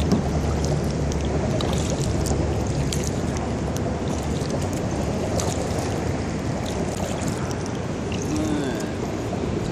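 Kayak paddle blades dipping and pulling through river water, with splashing and water trickling off the blades.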